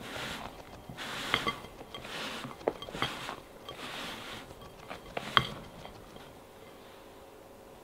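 Spatula folding sponge-cake batter in a glass mixing bowl: soft swishes of the batter with several sharp clicks of the spatula against the glass, the loudest about five seconds in. It goes quieter near the end.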